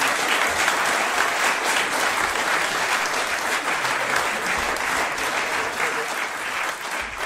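Audience applauding steadily as the music ends.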